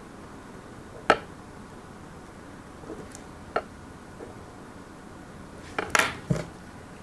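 Sharp clicks and clacks of hand tools being handled while trimming a DC power cable's conductors: one sharp click about a second in, a lighter one midway, and a quick cluster of clacks near the end.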